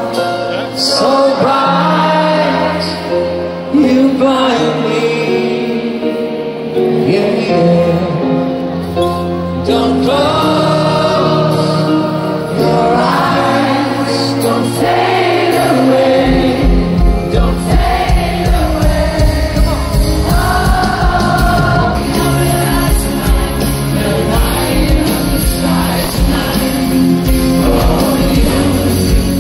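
Live pop band playing in a stadium, heard from within the crowd: singing over sustained chords, with a steady drum beat coming in about halfway through.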